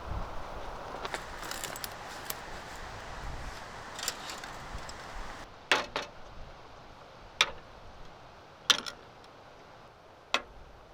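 Tea ware clinking: four sharp, ringing clinks about a second and a half apart. A steady hiss of wind or surf runs underneath until it cuts off about halfway through.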